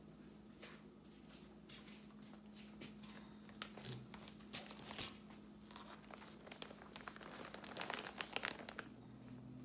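Faint crinkling and light clicks of paper or packaging being handled, growing busier about eight seconds in, over a faint steady hum.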